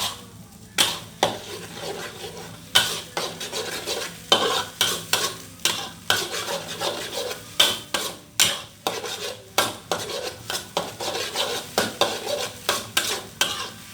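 Spatula repeatedly scraping and knocking against a frying pan, about two to three strikes a second, as beaten eggs are stirred and broken up in hot oil, with the eggs sizzling lightly underneath.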